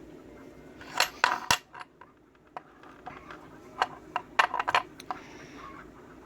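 Small metal lock parts clinking and tapping as a pin-tumbler cylinder is taken apart: a run of sharp light clicks in two clusters, about one second in and again around four to five seconds in.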